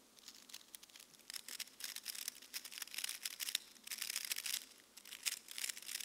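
Rubik's Cube being speedsolved: rapid clicking and clacking of its plastic layers turning under the fingers, in quick flurries with a brief lull about two thirds of the way through.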